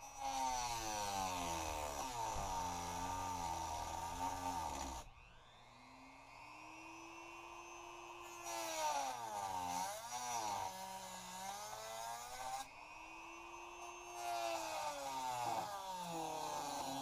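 Handheld rotary tool cutting chrome-plated plastic, in three loud stretches of grinding. The motor's pitch dips and rises as it bites into the part, and between the cuts the tool runs more quietly.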